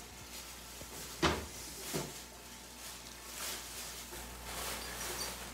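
Thin plastic shopping bag rustling as a hand rummages inside it, with two knocks, one a little over a second in and a fainter one about two seconds in.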